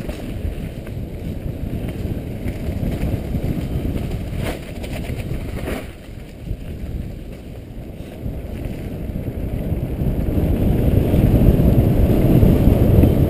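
Wind buffeting a helmet-mounted camera's microphone while riding a mountain bike fast downhill on a dirt trail, mixed with tyre and bike rattle. Two sharp knocks about a second apart near the middle, and the rush grows louder near the end.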